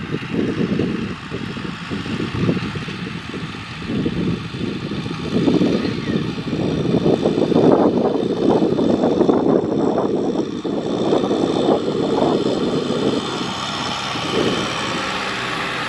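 Kubota M6040SU tractor's diesel engine running under load while it pulls a rotary cultivator through dry soil. The sound is a dense, rough low rumble that swells and eases, loudest in the middle.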